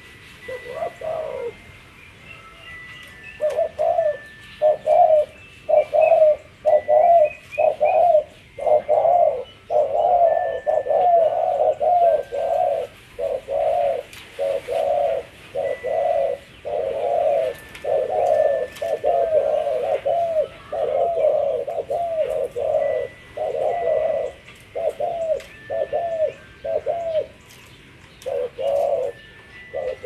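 Caged spotted dove cooing: a long run of short low coos, about two a second, with a brief pause after the first call before the coos run on without a break.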